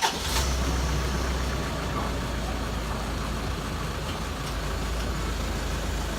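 Toyota Land Cruiser Prado engine idling steadily just after being started, easing back slightly in the first second or two.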